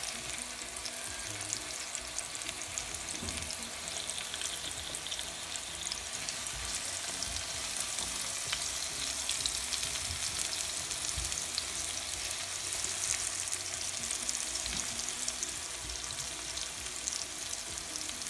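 Spice-coated pangas fish steaks frying in a little oil in a pan: a steady sizzle with fine crackling throughout.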